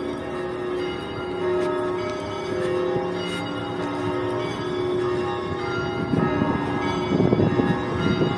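Church bells ringing: several bells of different pitches struck again and again, their tones overlapping and ringing on. From about six seconds in, a rough rumbling noise swells up beneath the bells.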